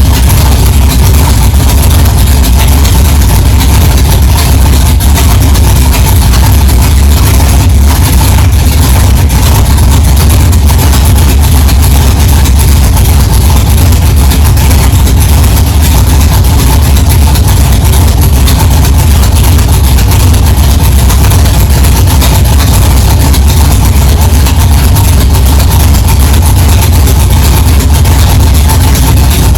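1964 Chevrolet Chevelle's engine idling steadily and loud, with a deep even note and no revving.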